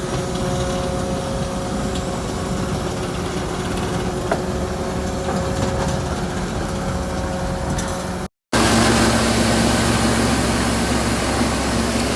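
Farm machinery engine running steadily, with a thin steady whine over it. About eight seconds in, a cut brings a louder machine sound with a rushing hiss over a low hum.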